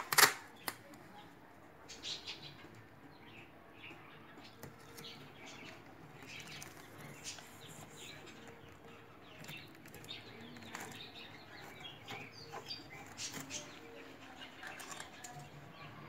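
Adhesive tape being handled and pressed down over plastic film: two sharp, loud crackles right at the start, then scattered soft crackling and crinkling.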